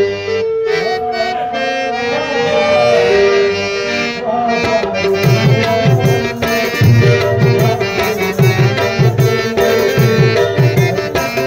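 Stage music of a held melody line with tabla drumming; the drum strokes come in strongly about five seconds in and keep an even beat.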